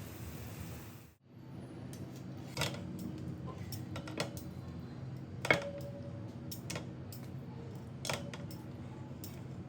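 About six sharp clinks of a metal utensil against cookware, spaced a second or more apart; the loudest, about halfway through, rings briefly. A steady low hum runs underneath.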